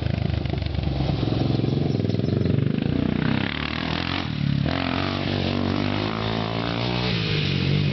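Honda 400EX sport ATV's single-cylinder four-stroke engine running under changing throttle, its pitch rising and falling as it is ridden.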